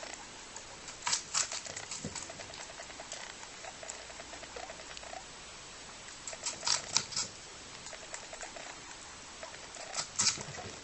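Grey lop-eared rabbit eating a whole red apple: loud crisp crunches as it bites into the apple, about a second in, around six to seven seconds in and again near the end, with fast light chewing clicks in between.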